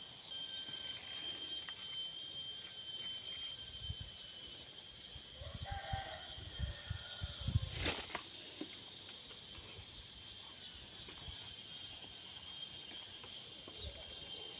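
A chicken calls briefly about six seconds in, over a steady high-pitched insect drone, with a few low thumps and one sharp click around it.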